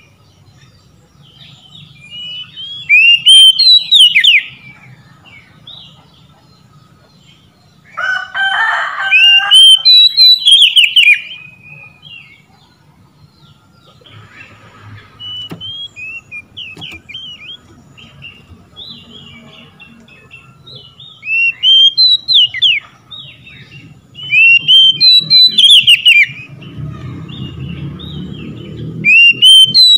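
Oriental magpie-robin singing: loud bursts of quick rising and falling whistled phrases, a few seconds apart, with softer scattered notes between them.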